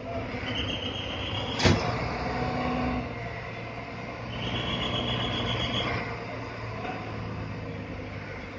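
Diesel engines of state transport buses running steadily, with a single sharp knock about a second and a half in. A steady high hiss comes twice: briefly around the knock and again for a second or two in the middle.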